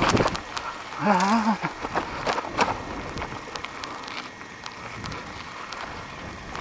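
Wind on the microphone briefly, then a short wavering hum from a person's voice about a second in, followed by scattered light clicks and ticks.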